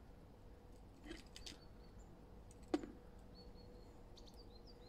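Eurasian red squirrel clucking: a faint run of short, high, falling chirps, about four a second, starting past the halfway mark. A single sharp knock sounds a little before the chirps begin.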